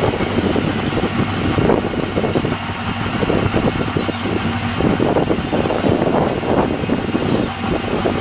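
Motorcycle engine running hard, held at steady high revs.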